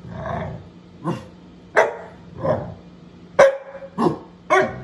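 A pit bull-type dog barking at close range: a string of about six short, sharp barks in quick succession, with some grumbling between them.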